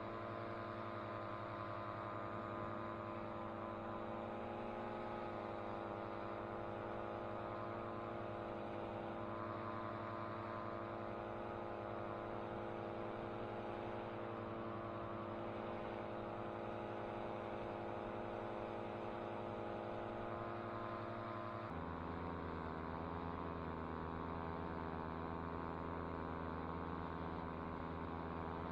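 Air Conception Tornado 280 two-stroke paramotor engine and propeller running steadily under power. About 22 seconds in, the drone drops a step in pitch as the engine speed is brought down, then holds steady again.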